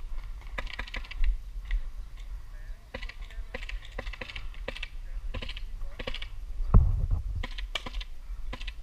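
Paintball markers firing: sharp pops, often several in quick succession, at irregular intervals, with a dull thump about seven seconds in.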